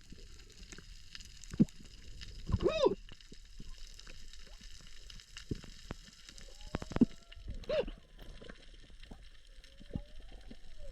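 Underwater camera audio on a coral reef: a steady crackle of scattered clicks, with a few short, muffled whooping tones that rise and fall, from a snorkelling diver.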